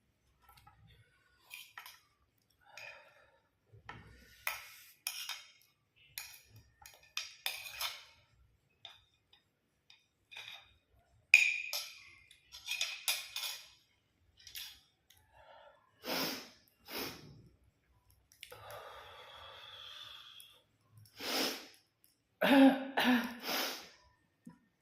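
Close-up eating sounds: irregular crunches and clicks of food and utensils, with a few clinks and breaths, louder toward the end.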